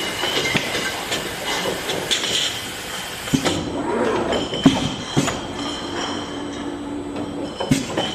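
Automatic inline bottle filling machine running: a steady mechanical clatter with sharp clicks and knocks. A steady hum joins it for a couple of seconds near the end.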